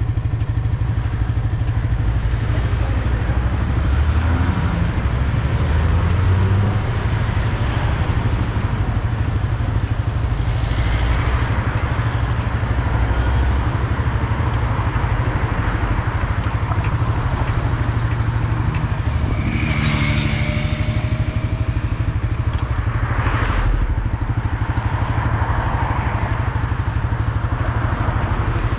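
Suzuki GSX-R sport motorcycle engine running steadily at low revs, while other traffic passes.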